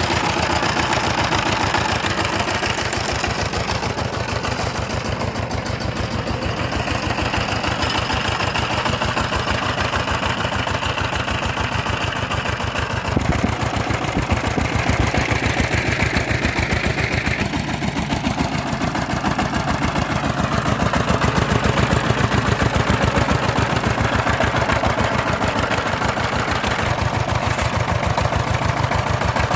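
Engine of a small combine harvester running steadily, with a fast, even low pulse.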